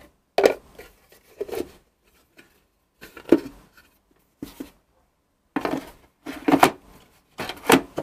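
Hard plastic knocks and clicks as the clear dust container of a Bosch Runn bagless vacuum cleaner is handled and fitted back into the vacuum's body. The knocks are irregular, with a quick cluster in the last couple of seconds.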